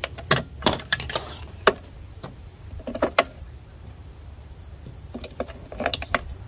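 Batteries being loaded into the plastic battery compartment of an animatronic's control box: a series of sharp plastic clicks and light knocks, bunched near the start, around three seconds in and again near the end.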